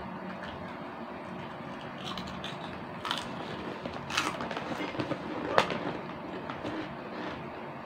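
Plastic snack bag crinkling in a few short crackly bursts as a hand reaches into it, the sharpest about five and a half seconds in, over steady background hiss.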